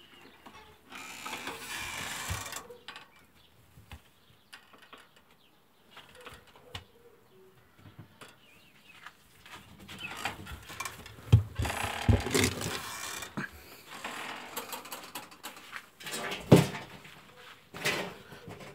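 Handling noises at wooden rabbit hutches: hay rustling and scattered knocks and clatter of wood and wire mesh, busiest in the middle, with a sharp knock near the end.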